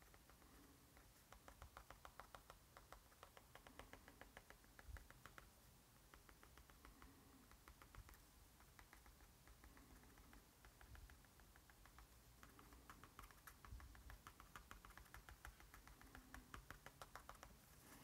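Uni Pin fineliner tip tapping on sketchbook paper, stippling dots. Faint quick ticks, about ten a second, come in runs of a few seconds with short pauses between them.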